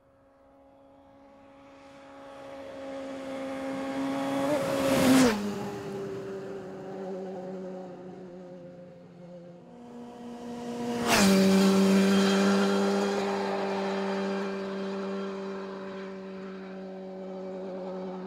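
BMW S 1000 R's inline-four engine as the motorcycle passes by twice at a steady speed. Each time the engine note builds as it approaches, then drops sharply in pitch as it goes past, about five seconds in and again about eleven seconds in. The second pass is louder, and the note then slowly fades.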